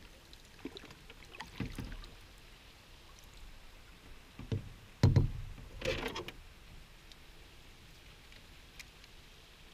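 A canoe on the water: paddle strokes with a few irregular knocks and splashy swishes, the loudest knock about five seconds in.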